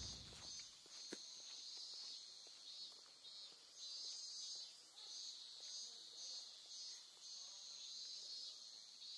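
Faint chorus of crickets chirping in repeating pulses, a few a second, with one soft click about a second in.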